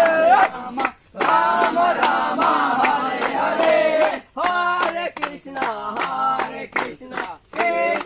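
A group of young men chanting together in loud short phrases with brief pauses, clapping their hands in a steady rhythm of about three to four claps a second.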